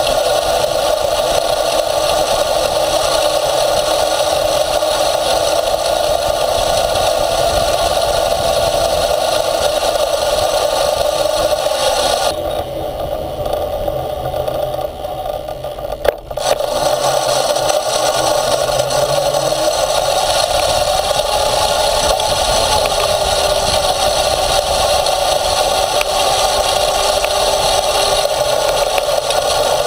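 Electric off-road skateboard's motor and chain drive running: a steady motor whine with chain and frame rattle and wheel noise over it. Around the middle it goes quieter for a few seconds, then a single sharp knock and the full drive sound picks up again, its whine rising a little.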